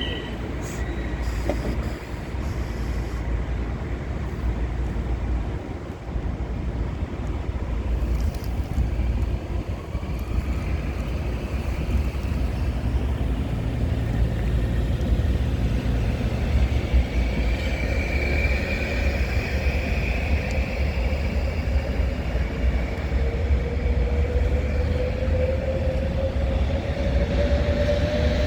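Freight train rolling past, a steady low rumble of wheels on rail. A faint high squeal comes about two-thirds of the way in, and a slowly rising squeal begins near the end.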